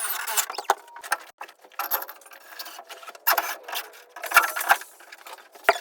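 Irregular scraping and rubbing in short spells, with a few light clicks.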